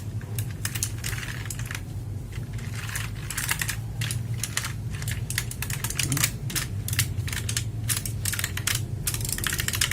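HP GK400Y mechanical keyboard with clicky blue switches being typed on: a fast, uneven run of keystroke clicks over a steady low hum.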